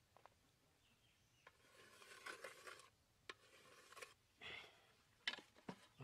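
Faint scraping and rubbing of hands and a bamboo stick on dry soil, with a few light clicks and taps.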